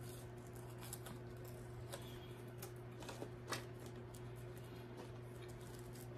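Faint soft clicks and rustles of fingers picking up and sorting french fries, with a slightly louder click about three and a half seconds in, over a steady low hum.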